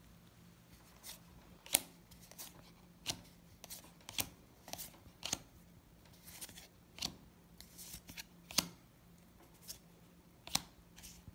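Magic: The Gathering trading cards being flipped through one at a time in the hand, each card sliding off the stack with a soft snap. The snaps are irregular, roughly one a second, with louder ones about 2 s and 8.5 s in.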